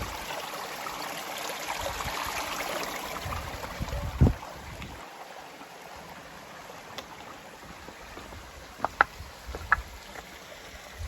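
Small stream running and trickling over stones, a steady rushing wash. A low thump about four seconds in and a few sharp clicks near the end.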